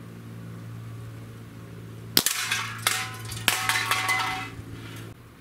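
6-inch Dan Wesson 715 CO2 .177 pellet revolver firing at drink cans: a sharp crack about two seconds in, then two more sharp cracks about two-thirds of a second apart. Metal clattering and ringing as the cans are hit and knocked over dies away about a second later.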